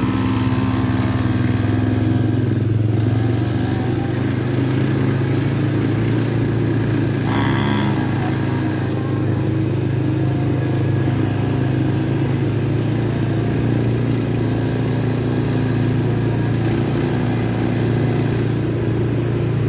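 Motorcycle engine running at a steady, even speed while riding.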